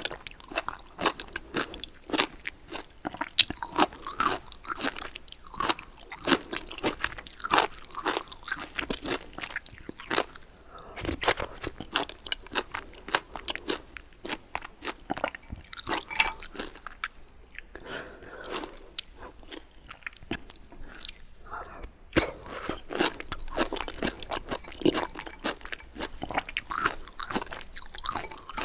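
Close-miked chewing of food, a steady run of irregular crunching and wet mouth clicks.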